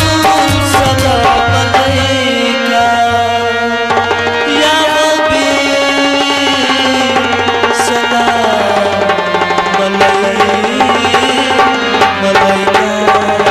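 A male voice singing a naat, an Urdu devotional song, to harmonium and tabla. The harmonium holds steady sustained notes under the gliding vocal line, and the tabla keeps up a running rhythm of strokes.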